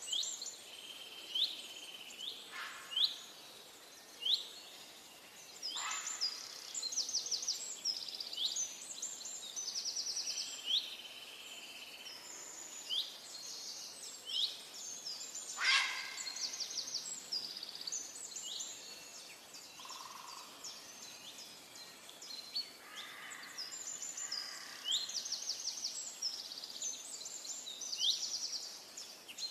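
Several songbirds calling in forest, with many short high chirps and quick rapid trills overlapping throughout, over a faint steady hiss of a creek.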